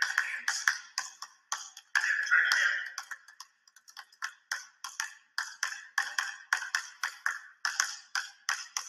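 Two basketballs being dribbled on a wooden gym floor, a run of bounces about three to four a second. A high sustained sound is heard twice in the first three seconds.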